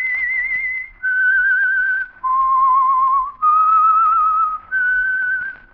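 A person whistling a slow, eerie signature theme: five long held notes with a wavering vibrato, about a second each with short breaks between, the tune dropping then climbing back up.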